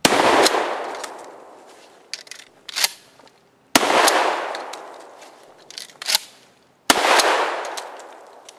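Three shotgun shots about three seconds apart, each followed by a long echo. Between the shots come sharp clacks of the pump action being racked and shells being loaded.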